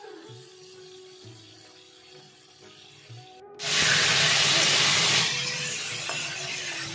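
Faint background music, then about three and a half seconds in a sudden loud sizzle of whole peeled pointed gourds frying in hot oil in a karai. After about a second and a half it settles to a steadier, softer sizzle.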